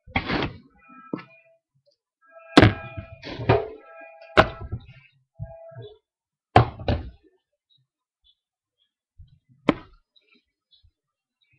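Handling knocks and clatters at a stainless steel kitchen sink as a plastic cup and other items are picked up, bumped and set down. About four sharp knocks a couple of seconds apart, with smaller clatters and brief high tones between them.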